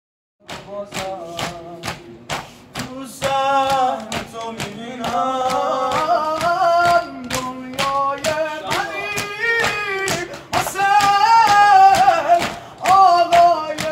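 A man chanting a Shia mourning lament unaccompanied, over a quick, steady beat of men slapping their chests with open palms. The chest-beating runs alone at first, and the singing comes in about three seconds in.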